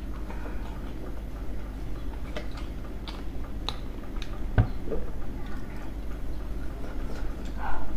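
Close-miked chewing and wet mouth sounds of someone eating steamed dumplings, with scattered small clicks and one sharp knock a little past halfway through.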